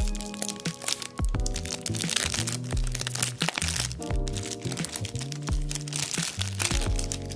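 Plastic shrink-wrap crinkling and crackling as it is peeled and crumpled off a small cardboard box, over background music.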